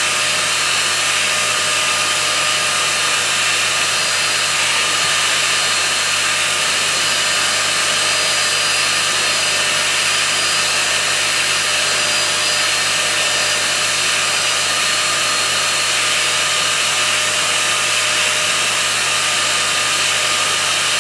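Ultenic P30 Combo pet-grooming vacuum running steadily while its brush head is worked through a dog's coat: an even rush of air with a steady motor whine.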